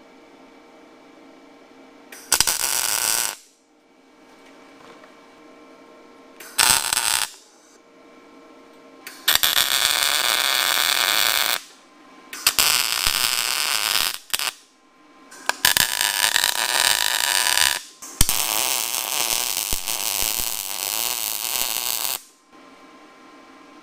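Electric arc welding on steel pipe and angle iron: six separate bursts of buzzing arc noise that start and stop abruptly. Two short tack welds come first, then longer welds of about two to four seconds each, with brief pauses between them.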